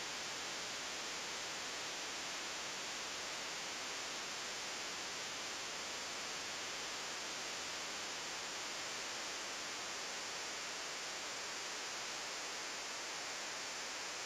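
Steady, even hiss with nothing else heard over it: the noise floor of a poor recording.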